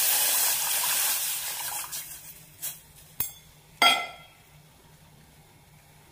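Thin coconut milk poured in a steady stream into a stainless steel saucepan, splashing loudly for about two seconds and then tapering off. A few light knocks follow, then a metallic clank with a short ring about four seconds in.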